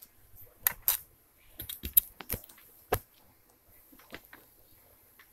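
Irregular sharp clicks and taps, a dozen or so scattered unevenly, from hands handling things close to the camera while working lotion into slime.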